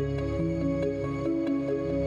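Background music: soft, sustained new-age style notes that change every half second or so, over a light, steady tick.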